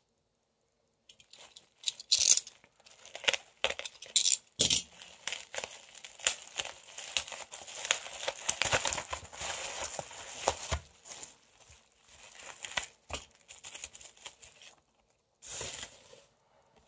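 Plastic bubble wrap handled and pulled open by hand: irregular rustling and sharp crackles, with a short final burst of rustling near the end.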